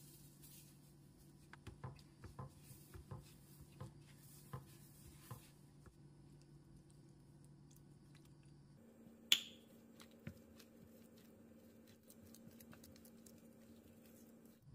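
Faint soft taps and scrapes of a silicone spatula working instant potato flakes in a metal pan, over a low steady hum. About nine seconds in comes one sharp ringing clink against the pan.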